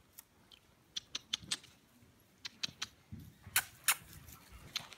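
A series of sharp mouth clicks, clucks urging a horse to walk on, coming irregularly about nine times with the loudest pair a little past halfway.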